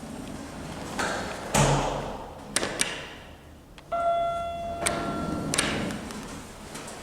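Lift operating: a heavy thump, two sharp clicks, then a steady electronic chime tone held for about a second and a half, followed by a rush of sound like the doors moving.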